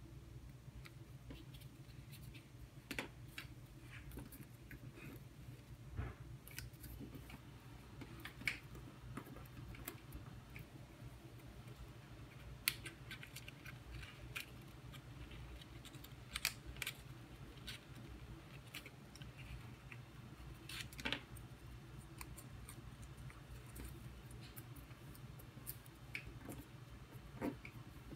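Folded origami paper being handled, creased and pressed together: scattered small crinkles and clicks of paper, over a faint steady low hum.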